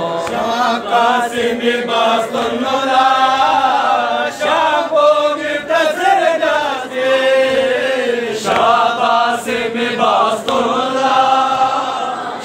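A group of men chanting a Balti noha, a Shia mourning lament, together in long sung lines, led by a singer at a microphone.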